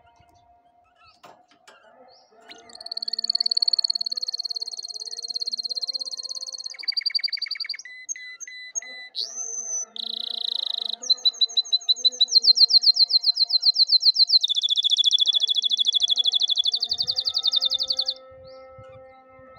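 Domestic canary singing a long, high-pitched song of rapid trills and rolling phrases that starts a few seconds in. Midway there is a short rising whistled glide, then fast repeated notes, and the song stops suddenly near the end.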